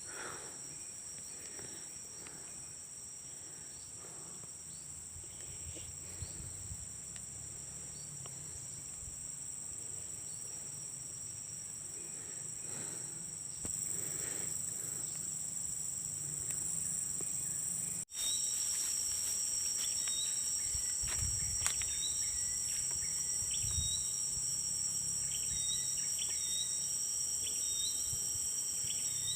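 A chorus of insects, with a steady, high-pitched drone. About two-thirds of the way through it cuts abruptly and comes back louder, now with short, high chirps repeating every second or two.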